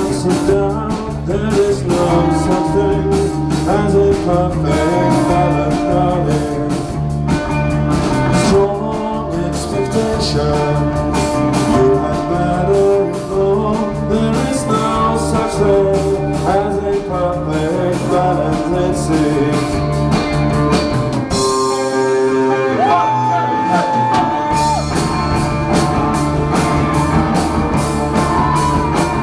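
Rock band playing live: drums, bass and electric guitar in an instrumental passage. About two-thirds of the way through, the bass and drums drop out for a few seconds, leaving a single held note that bends upward, and then the full band comes back in.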